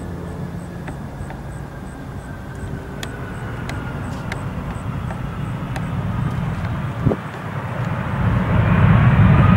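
Jet airliner approaching, its engine noise building steadily toward the end, with a thin high whine over a low rumble.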